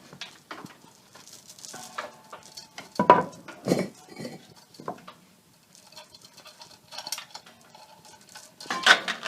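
Irregular metallic clanks, knocks and scrapes from handling the hoist and the water heater. A few of the clanks ring briefly, there is a quieter stretch midway, and a louder cluster of knocks comes near the end.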